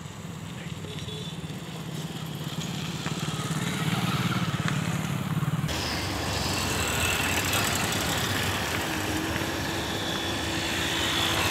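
Engine and road noise of a moving road vehicle, heard from on board. A steady low hum gives way about halfway through to a louder, rougher running noise.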